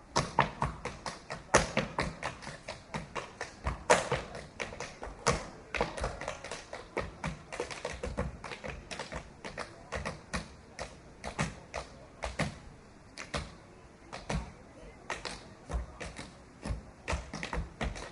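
Tap shoes striking a hard floor in quick, uneven runs of sharp clicks, with heavier thuds among them: tap dance practice.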